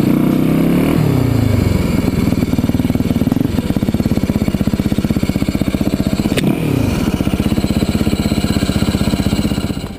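Motorcycle-type engine running with a fast, even pulsing beat. Its pitch falls off a rev at the start, and it gives a quick blip of revs about six and a half seconds in. The sound drops away just before the end.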